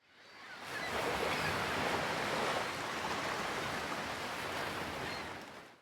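Steady outdoor rushing noise, fading in over about a second and fading out at the end, with a few faint short high chirps.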